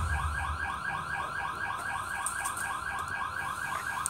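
An electronic alarm warbling steadily, about six rising-and-falling chirps a second, with a low rumble that stops about half a second in.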